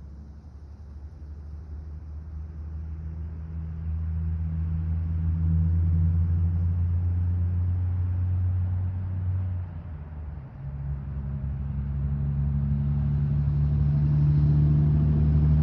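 A car engine rumbling low and steady, growing louder over several seconds, dipping briefly about ten seconds in and then building again at a slightly higher pitch.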